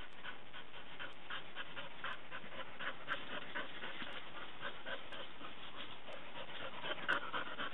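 A dog panting quickly and steadily, about four breaths a second.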